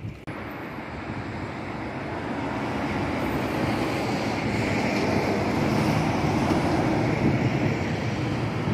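Road traffic noise: a passing vehicle's noise swells gradually over several seconds and eases slightly near the end.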